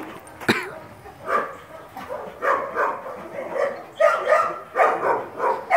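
Dog barking repeatedly: about a dozen short barks, coming faster in the second half, with a sharp snap about half a second in.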